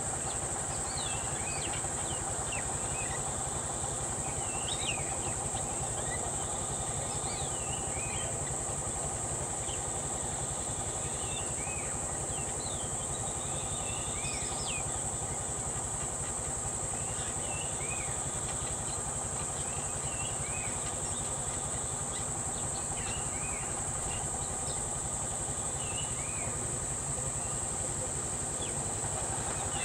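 Steady high-pitched insect drone with many short bird chirps scattered throughout, over the low steady hum of an idling vehicle engine.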